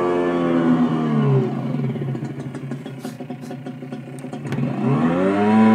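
E-bike sound generation module playing a simulated sports-bike engine through its speaker. It is held at revs, drops to idle about a second in, then climbs back up near the end as the throttle opens again. A few light clicks come during the idle.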